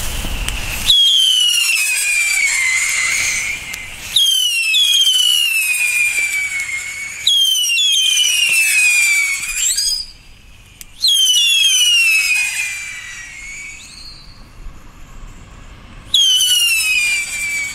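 Funke Silberheuler air-howler fireworks going off one after another: about five loud howling whistles, each starting high and falling in pitch over two to three seconds.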